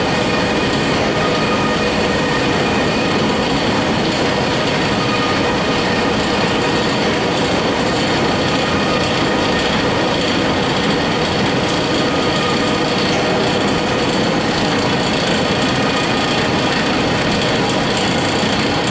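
Automatic rice-noodle feeding and flow-wrapping line running: a steady, dense mechanical clatter and hum with a few faint steady whining tones, unchanging throughout.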